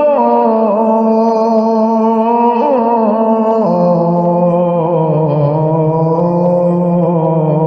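A muezzin's voice holding a long, slow, melismatic note of the Javanese-style (langgam Jawa) call to prayer, drawing out the vowel of 'rasulullah'. The pitch winds in small ornamented turns and steps down to a lower note about halfway through.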